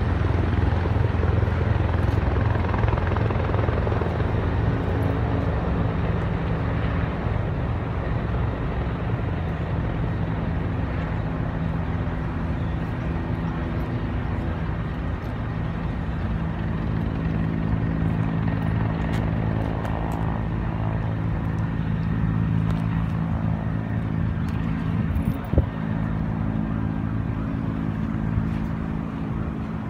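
Helicopter drone, steady and continuous with a pulsing low rotor chop, easing off a little over time. A single sharp click about 25 seconds in.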